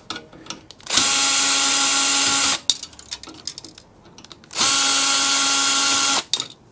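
Power drill-driver running twice at a steady speed, about a second and a half each time, backing out screws. Small clicks of handling come between the two runs.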